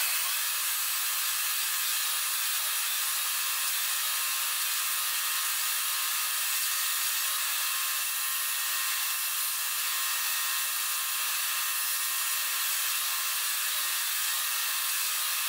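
Belt grinder running, its abrasive belt sanding the edge of a leather knife sheath: a steady, even hiss with a faint motor hum beneath.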